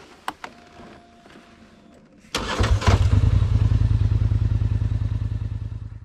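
Polaris ATV engine starting: a couple of light clicks, then a little over two seconds in the engine catches abruptly and runs with a steady rhythmic beat, fading out near the end.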